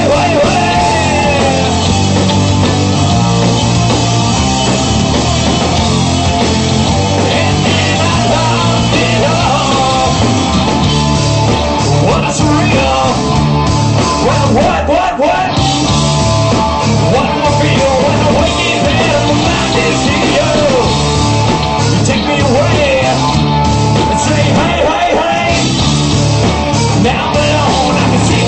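Punk rock band playing a song with distorted guitars, bass and drums, with a singer's voice coming in at times.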